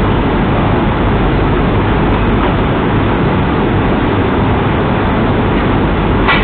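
Steady loud hiss and rumble of room noise picked up by a surveillance camera's microphone, with a faint click near the very end as the snooker cue strikes the cue ball.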